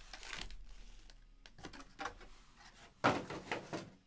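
Foil-wrapped trading-card packs being handled and stacked on a tabletop: faint rustling and small clicks, then a louder crinkling knock about three seconds in as the stack is set down.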